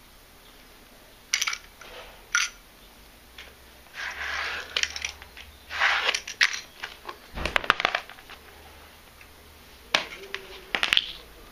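Vinyl composition tile being worked by hand: scored with a utility knife, snapped and slid across the floor into place. It comes as a string of short scraping strokes and sharp clicks, with one louder thump a little over halfway through.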